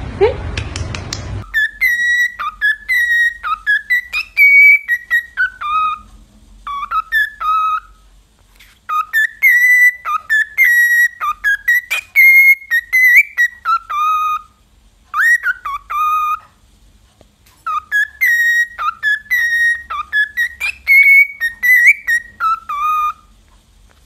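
Cockatiel whistling a tune: a melody of clear, short whistled notes with slides in pitch, sung through three times with short pauses between.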